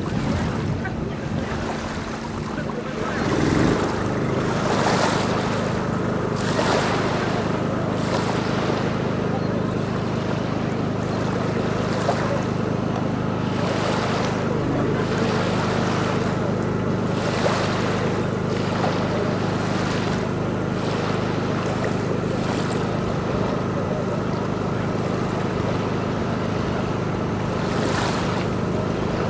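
An engine drones steadily, its pitch shifting once about three seconds in, while gusts of wind buffet the microphone every few seconds.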